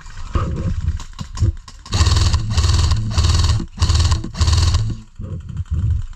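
Heavy, rhythmic panting close to the microphone, about one and a half breaths a second, starting about two seconds in. Before that there are scattered clicks and rustles.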